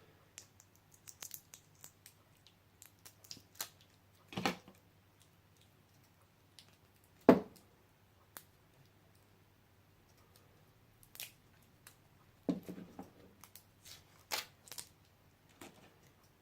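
Irregular clicks, snaps and scraping of hand work on a laptop battery pack as its plastic casing and 18650 cells are pried apart, with one sharp snap about seven seconds in.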